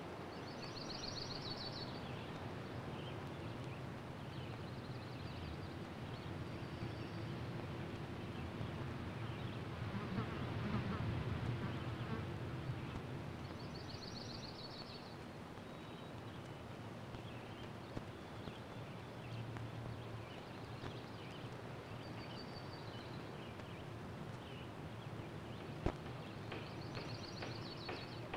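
Woodland ambience: a steady hiss with a low hum beneath, and a short high bird trill that comes back five times, irregularly spaced. The background swells briefly about a third of the way through, and there is a single sharp click near the end.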